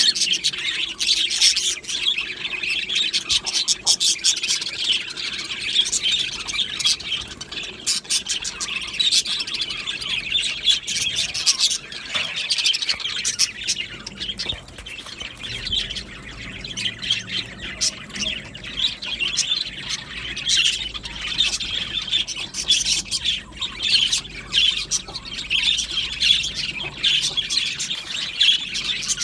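A flock of budgerigars chattering, with many birds warbling, chirping and squawking at once in a dense, unbroken stream of high calls.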